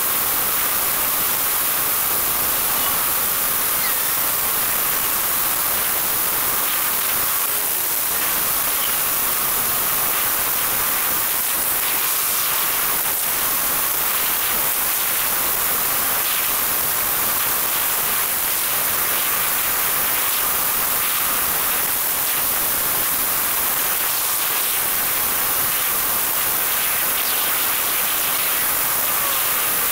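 Battery-powered RC car driving on asphalt, heard from the camera riding on it: a steady, loud hiss of tyres and drivetrain that holds even throughout.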